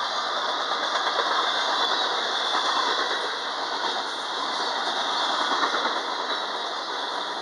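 Double-stack container train's well cars rolling past at trackside: a loud, steady rush of steel wheels on rail, with some clickety-clack.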